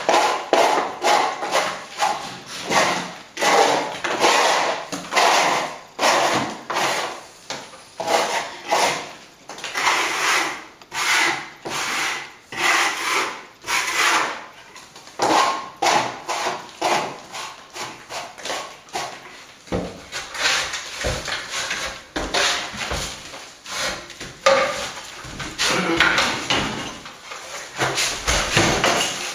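Wide steel scraper rasping against a plastered wall in repeated short strokes, about one a second, scraping back a sand-and-plaster patch over an electrical chase.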